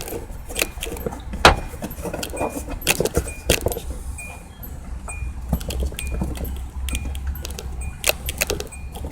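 Scattered metallic clinks and knocks from hand tools and small parts being handled during reassembly, some with a short ringing tone, over a steady low rumble.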